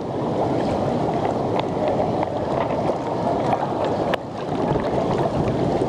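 Whirlpool hot tub water churning and bubbling from its jets, heard close at the water's surface as a dense, steady rush with faint splashy ticks; it dips briefly just after four seconds in.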